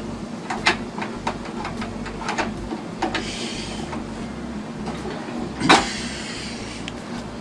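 Scattered clicks and knocks from handling a propane tank and its grill fittings, with a short hissing rush about three seconds in. The loudest moment is a sharp knock followed by another brief hiss near six seconds.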